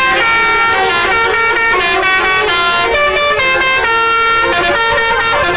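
Tour bus 'telolet' multi-tone basuri air horn playing a melody, sustained notes stepping from pitch to pitch about every half second.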